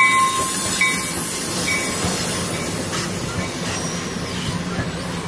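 Amtrak Cascades passenger train with Talgo coaches rolling past close by, its wheels rumbling and clattering on the rails. Over the first two seconds a short high ringing tone repeats about once a second.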